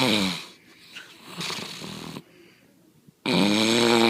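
Loud snoring: a pitched snore tails off just after the start, a softer breath comes about halfway, and another loud snore with a clear pitch starts about three seconds in.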